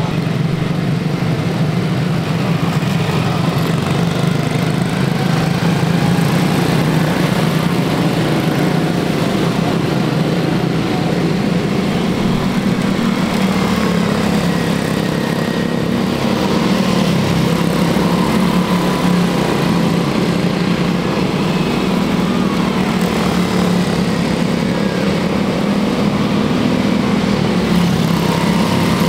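Quarter midget race cars' small engines buzzing steadily as they lap the track, the pitch wavering slightly as cars pass.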